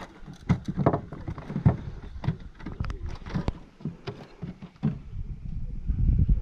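Irregular knocks and thumps inside a fishing boat as a landed fish is handled, with a low rumble building near the end.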